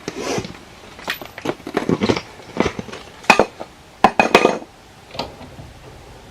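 Metal tools and hardware clinking and clanking irregularly while working at a jacked-up car's wheel, with a few sharper metallic knocks that ring briefly about three and four seconds in.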